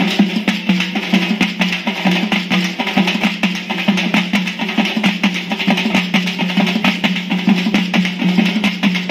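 Dappu frame drums beaten in a fast, dense, steady rhythm, with a steady low hum underneath.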